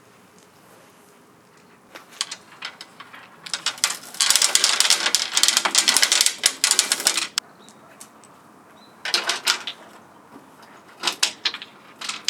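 Footsteps crunching through fresh, deep snow: a few steps about two seconds in, then a long run of loud crunching for about three seconds, and two shorter bursts of steps near the end.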